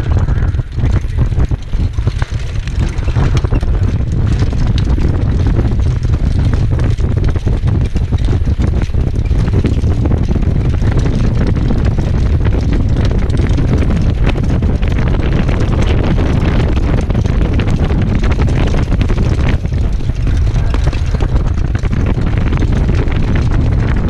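Heavy wind rumble on the microphone of a camera riding on a harness-racing sulky moving at speed behind a trotting horse. It is steady and loud, laced with irregular knocks from the hooves and wheels on the dirt track.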